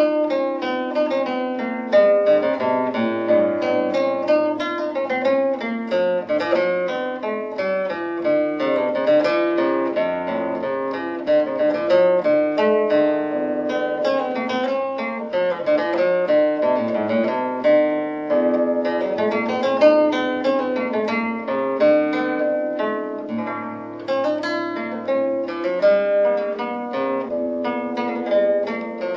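Background music: a plucked string instrument, guitar-like, picking a quick, continuous run of notes.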